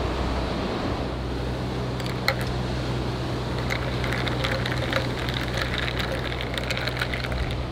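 Clear glass drinking straw stirring ice cubes in a glass, clinking against the ice and the glass in quick irregular taps that start about two seconds in. Under it a steady low rumble of sea and wind.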